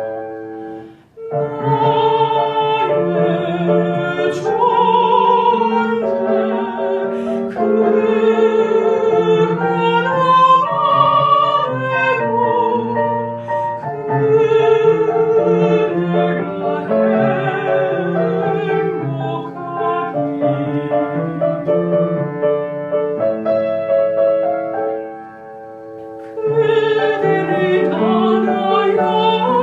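Background music: a classical soprano singing with piano accompaniment. There is a brief break about a second in and a quieter passage near the end.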